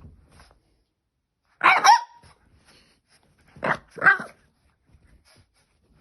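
A French Bulldog puppy barking: one sharp bark about two seconds in, then two more in quick succession near the four-second mark.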